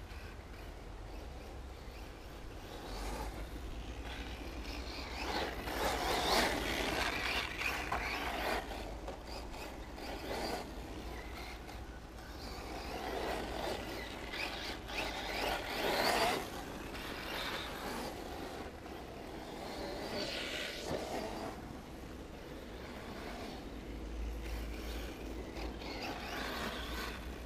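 Radio-controlled off-road car running laps on a dirt track, its motor and tyres swelling up loud and fading away four times as it passes, over a low steady rumble.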